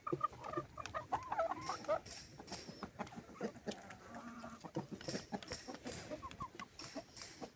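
Several chickens clucking, with many short overlapping calls, busiest in the first two seconds, and a longer held call a little past the middle.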